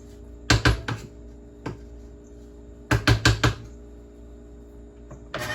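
Spatula knocking and tapping against the stand mixer's bowl and beater while scraping down batter: a few sharp knocks about half a second in, a single tap near two seconds, then a quick run of five knocks around three seconds in.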